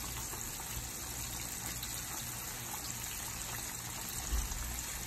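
Flour-coated chicken pieces deep-frying in a pot of hot oil: a steady sizzling hiss of the bubbling oil. A brief low bump about four seconds in.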